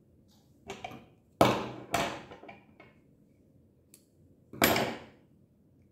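A few sudden knocks and brushing noises from hands handling yarn close to the microphone on a wooden table: three in the first two seconds, the loudest about a second and a half in, and one more near the end.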